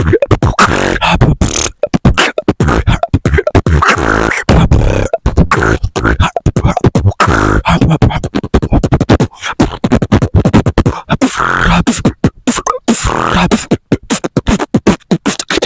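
Human beatboxing freestyle: a fast, continuous stream of mouth-made kick drums, snares, clicks and hissing hi-hats, with deep bass hits.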